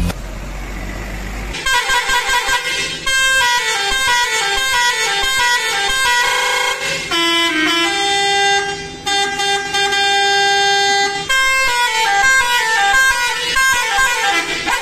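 Coach's multi-tone 'telolet' air horn playing fast melodic runs of rising and falling notes, with a few longer held notes in the middle. A steady rumble comes before it for about a second and a half.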